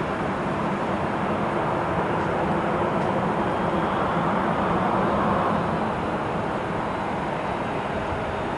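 Boeing 777 jet engines running, a steady loud rush with a faint high whine that swells a little about halfway through.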